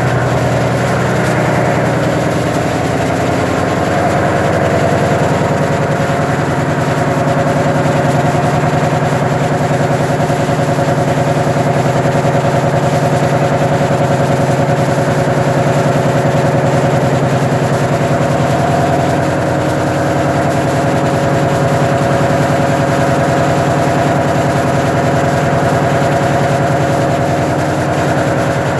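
Ship's engine-room machinery running with a loud, steady drone: a constant low hum with steady higher tones over it, unchanging throughout.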